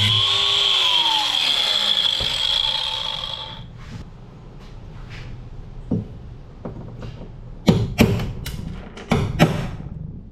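Angle grinder switched off and winding down, its whine falling in pitch over about three seconds. Then scattered knocks and several sharp metal strikes near the end, consistent with punching rivets out of the boat's aluminium transom.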